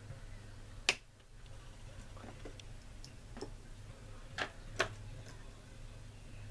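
Sharp clicks and light taps of tweezers and small resin propeller blades being handled on a cutting mat. The loudest click comes about a second in, with two more close together just before the five-second mark, over a low steady hum.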